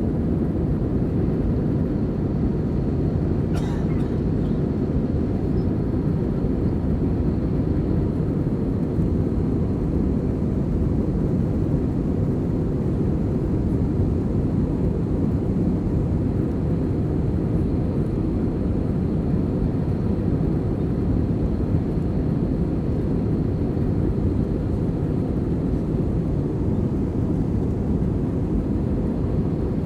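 Airbus A320 jet engines and airflow heard inside the passenger cabin: a steady, deep rumble that holds an even level throughout, with one faint click a few seconds in.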